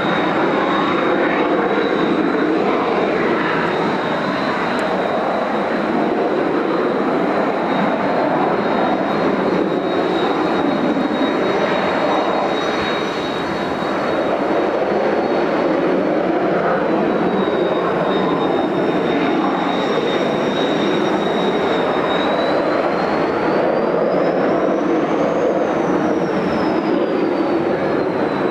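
Kawasaki T-4 jet trainers' turbofan engines running, a steady jet roar with a thin high turbine whine. About three quarters of the way through, the whine rises and then falls away as a jet passes.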